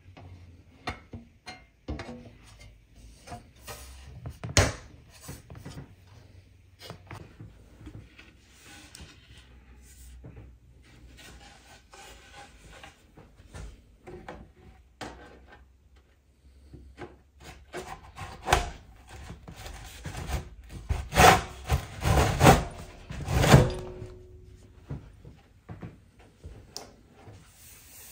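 IKEA Maximera drawer parts being handled and fitted together: scattered clicks and knocks of the steel drawer side and its plastic fittings against the panel, with some rubbing. A run of louder knocks comes about three-quarters of the way through.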